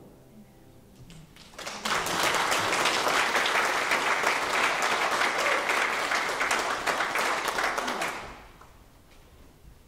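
The last chord of a grand piano dies away, then a congregation applauds for about six seconds, starting a couple of seconds in and tailing off near the end.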